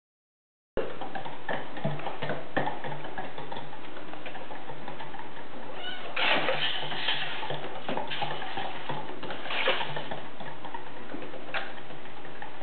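A Kyle's Cat Wheels cat wheel turning under a running Bengal kitten: a steady rolling noise with a low pulsing rumble, light patter of paws on the track and scattered ticks and clicks. The sound begins just under a second in.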